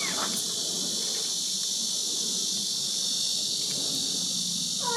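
Steady, high-pitched chorus of insects trilling without a break, with the end of a kitten's meow right at the start.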